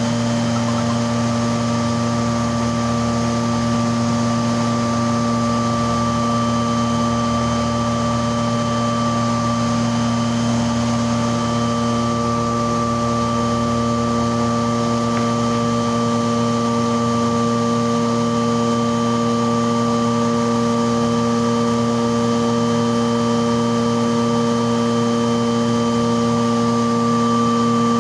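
Thermoforming machine running: a steady mechanical hum with several held tones that does not change.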